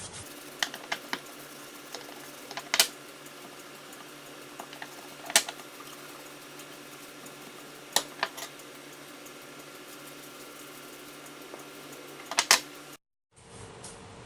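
A steady low mechanical hum with a handful of sharp clicks and knocks scattered through it, the loudest just before the end. The sound cuts out briefly near the end.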